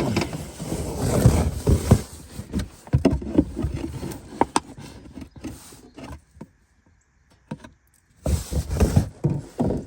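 Rustling, scraping and scattered knocks of containers being handled and moved, going quiet for a couple of seconds before another short burst of handling noise near the end.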